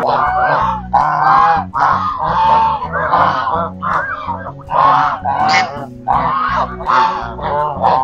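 A flock of domestic waterfowl calling: loud, overlapping calls that rise and fall in pitch, several a second.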